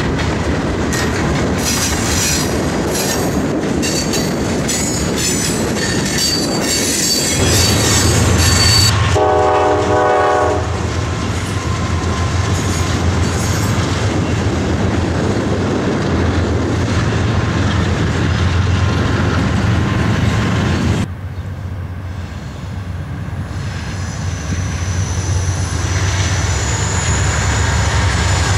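Double-stack intermodal freight train rolling past close by: steel wheels clicking over the rail joints, high wheel squeal in the first third, and the low, steady rumble of diesel locomotives. A brief air-horn chord sounds about nine seconds in; about three-quarters through the sound drops suddenly and then builds again as a diesel locomotive draws near.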